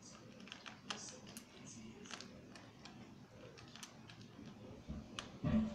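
A cat crunching dry kibble from a metal bowl: irregular sharp crunches, several a second at times, with a louder low thump near the end.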